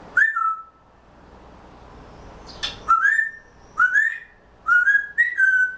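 African grey parrot giving short whistled notes, five in all: one near the start, then four in quick succession over the last three seconds, each sliding briefly in pitch.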